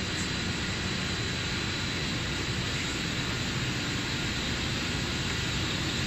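Three-layer cable extrusion line running: a steady machine drone of motors and fans with a faint, constant high whine.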